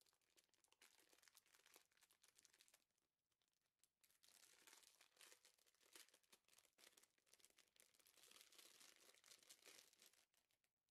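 A clear plastic bag crinkling faintly as it is unwrapped by hand, the rustling thicker in the second half.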